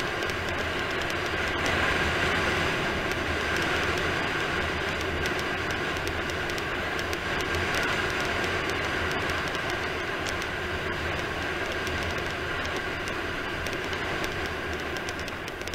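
Steady rush of wheels rolling fast over asphalt on a downhill descent, with wind noise on the camera's microphone and a constant hum running through it.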